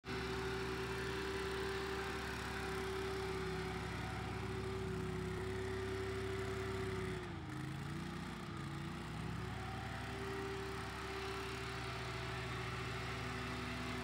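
Zero-turn riding mower with a rear bagger running and mowing tall grass, a steady engine hum whose pitch sags briefly about seven seconds in and then comes back up.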